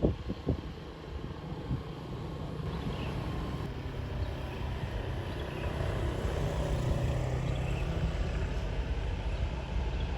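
Tour bus engine running as the bus comes along the road: a low steady rumble that grows slightly louder, with a few brief knocks near the start.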